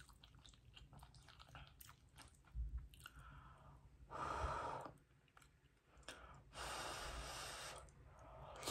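Soft clicks and scrapes of a metal fork in baked spaghetti squash, then two breathy blows of about a second each to cool the forkful, and a slurp as the strands go into the mouth at the very end.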